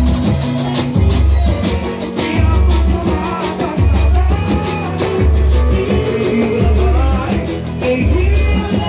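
Pagode band playing live: a singer over a bass beat about once a second and busy percussion, including a metal spring reco-reco being scraped.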